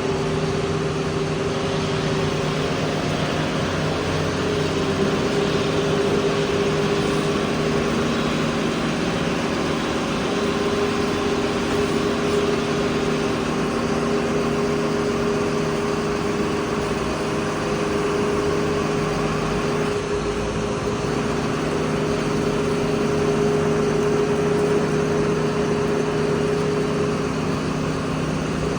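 A small engine running steadily at a constant speed, a continuous hum that holds one pitch throughout.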